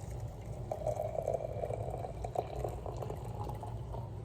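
Hot milk poured from a glass into a cup holding a tea bag: a steady pouring sound starting about a second in and trailing off near the end.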